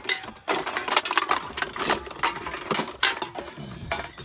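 Irregular clattering and knocking of loose objects being shifted and rummaged through by hand in a truck cab, a quick run of sharp clicks and rattles.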